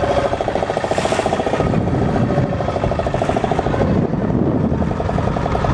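Motorboat engine running steadily at speed, with a fast, even pulsing.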